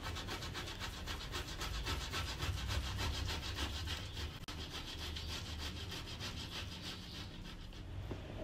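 Peeled potato being grated on a stainless steel box grater: quick, regular scraping strokes, fading near the end.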